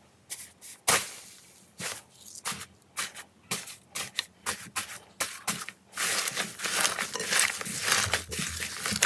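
Slime being handled: a string of separate sticky pops and clicks, turning into dense continuous crackling about six seconds in.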